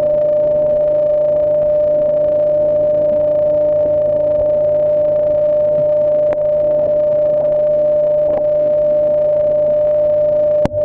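A loud, steady, unchanging tone with fainter lower tones beneath it, broken by a few brief clicks in the second half.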